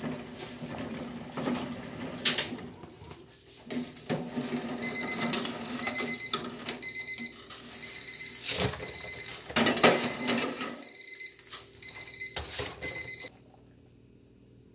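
Eggs boiling in a stainless steel pot on a gas stove, with a metal ladle knocking against the pot several times as the eggs are scooped out. From about five seconds in, an electronic timer beeps steadily, about twice a second, marking the end of the boiling time. The sound cuts off shortly before the end.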